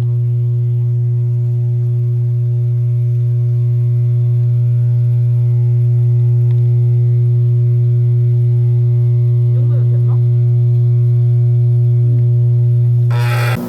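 A loud, steady electric hum with a low droning tone. It cuts off suddenly near the end. Faint voices are heard briefly about ten seconds in.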